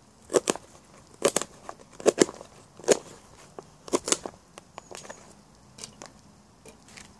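A knife chopping burdock stems into short pieces on a plastic chopping board: sharp knocks of the blade on the board, often two close together, about once a second. After about four seconds only a few faint taps follow.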